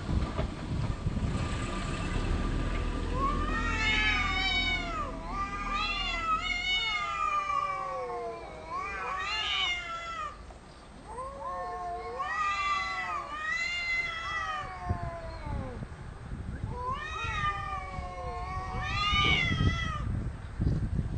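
Two male cats caterwauling at each other in a territorial standoff: long, drawn-out yowls that waver up and down in pitch, in several bouts with short pauses between them.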